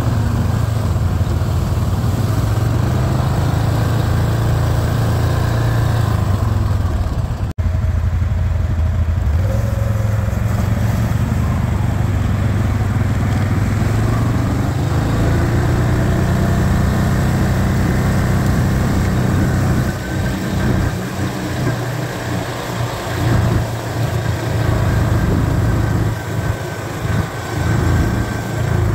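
ATV engine running at low trail speed, a steady low hum. It cuts out for an instant about seven and a half seconds in, and from about twenty seconds in it rises and dips unevenly.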